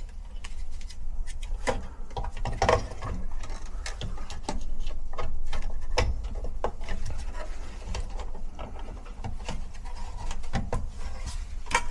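Gloved hands working a replacement furnace fan control board and its wiring into place: scattered small clicks, taps and rubbing of plastic, wire and sheet metal, over a steady low hum.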